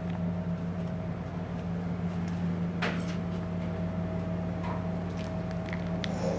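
A steady low electrical or mechanical hum, with a few light clicks and taps, one sharper click about three seconds in.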